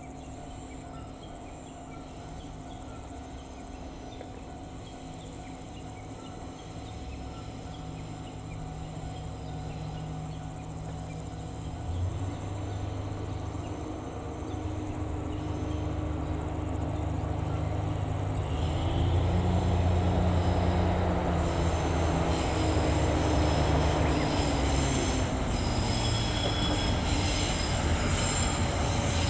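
DE10 diesel-hydraulic locomotive approaching, its engine running and growing steadily louder, with a rise in engine pitch partway through. Near the end the wheels squeal high-pitched as it comes round the curve.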